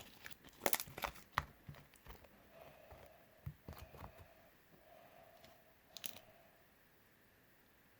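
Homemade slime being squished and stretched by hand, giving sticky crackles and pops, most of them in the first two seconds and a few more later.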